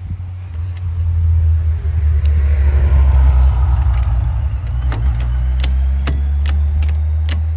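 A motor vehicle passing close by: a low engine drone that swells to a peak about three seconds in, then slowly eases off. From about five seconds in, sharp metal clicks come from the car jack as its handle is worked.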